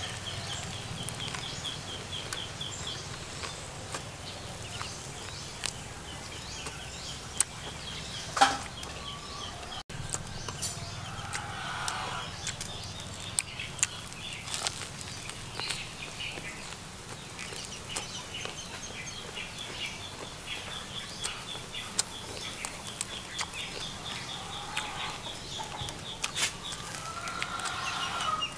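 Eating sounds: a crusty baguette sandwich bitten and chewed, with scattered sharp crunches. Behind it is a steady yard background with a high, rapidly pulsing chirp that comes and goes and a few bird calls.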